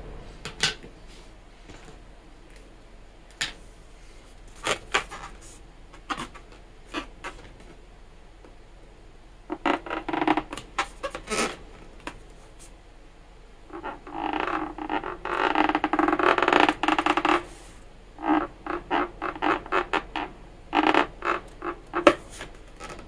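Marker pen drawing on an inflated latex balloon, the tip squeaking and rubbing on the rubber: a few faint scratches, then bursts of squeaking, the longest lasting about three and a half seconds past the middle, followed by a string of short squeaks near the end.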